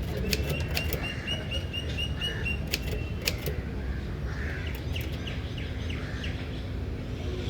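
Old manual typewriter keys striking in irregular sharp clacks, while a small bird chirps in a quick run of short high notes over steady street background noise.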